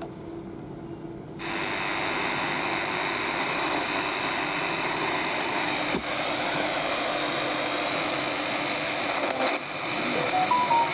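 Souness SNI-F100 portable radio's speaker hissing with FM static between stations as the FM dial is turned up from 88 MHz; the hiss switches on suddenly about a second and a half in. There is one click about six seconds in, and a few short faint tones come through near the end.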